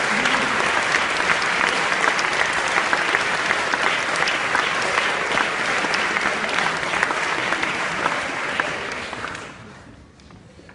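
Audience applauding: dense clapping that dies away about nine to ten seconds in.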